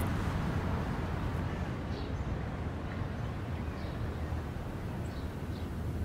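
Outdoor background: a steady low rumble with a few faint, short bird chirps.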